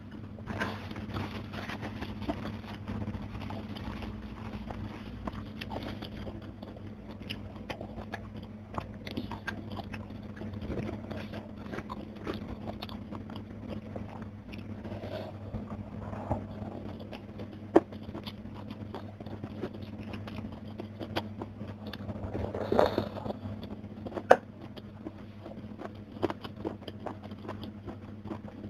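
Close-miked chewing and crunching of a mouthful of food, with wet mouth clicks and a few sharp louder snaps, over a steady low hum.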